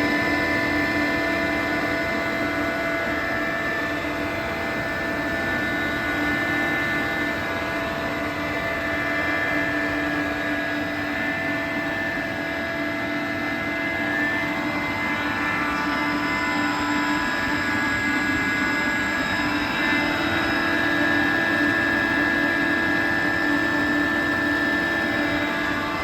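A 2007 Renner RS 22, a 22 kW rotary screw air compressor, running steadily under load as it builds pressure in its air receiver. It gives a constant hum with a steady high whine over it.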